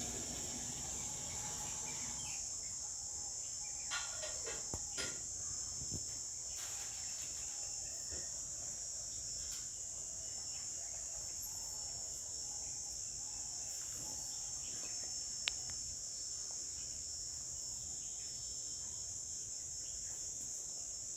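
Steady high-pitched insect chorus chirring without a break, with a few faint clicks around four to six seconds in and one sharp click about fifteen seconds in.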